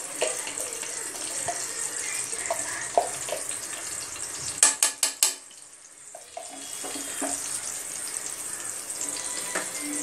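Ghee melting and sizzling in a hot aluminium pressure cooker, a steady hiss with scattered light clicks. About halfway through, four sharp clicks come in quick succession.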